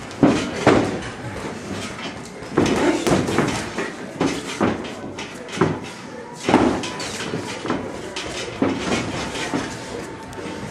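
Boxing gloves landing punches in sparring: irregular sharp thuds and slaps, about a dozen, some in quick combinations of two or three.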